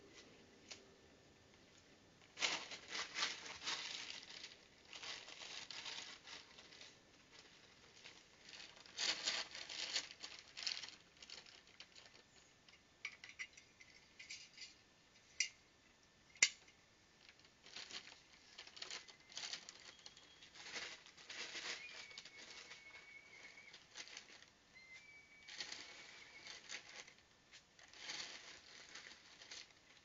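Short spells of rustling and pattering as a plastic bag of bird seed is handled and seed is poured into hanging garden bird feeders, with two sharp clicks about halfway through.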